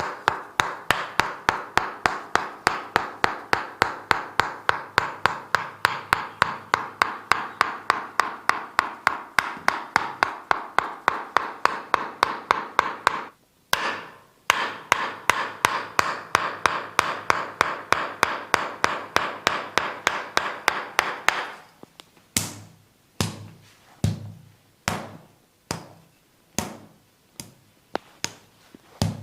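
Percussive massage strokes on the body: quick, even taps, about five a second, over a soft rubbing sound, with a brief pause about halfway. In the last several seconds they give way to slower, heavier strikes, a little more than one a second.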